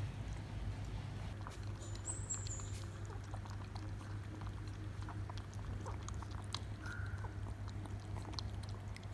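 Poodle puppies lapping milk from a plastic bowl: many quick, irregular wet clicks of tongues in the milk, over a steady low hum.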